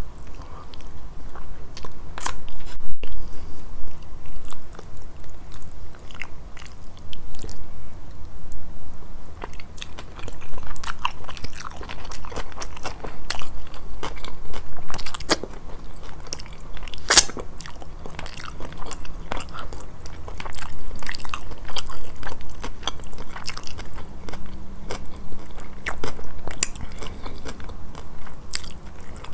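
Close-miked eating sounds from a grilled fish meal: chewing with many short crisp crunches, which come thicker from about ten seconds in.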